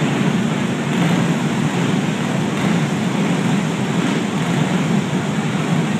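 Several go-kart engines running together as the karts race around a dirt oval, a steady reverberant drone filling a large indoor arena.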